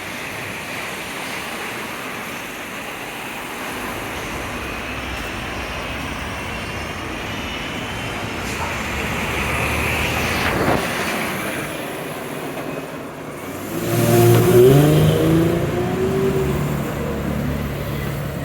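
Street traffic: a steady hum of passing cars that swells as a vehicle goes by about ten seconds in. About fourteen seconds in, a nearby engine accelerates through changing pitches, the loudest sound here.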